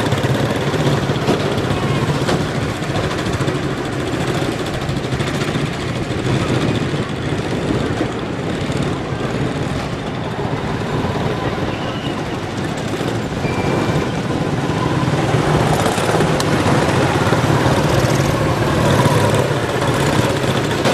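A pack of quarter midget race cars running their small single-cylinder engines at speed around the oval, a continuous blended buzz that eases a little in the middle and grows louder in the last few seconds as the cars come back toward the microphone.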